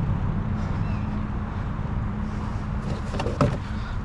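Small pickup truck's engine idling steadily. A couple of short knocks come a little past three seconds in.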